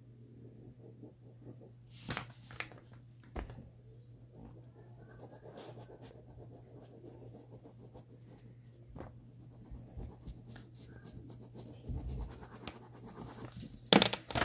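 Pen scratching on paper while drawing, over a steady low hum, with a few knocks and a louder handling knock near the end.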